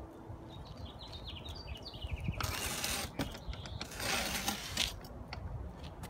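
Two rustling, scraping noises of gloved hands pressing potting mix and tomato foliage down into a glazed pot, the second a little longer. They come just after a bird's quick descending run of chirps.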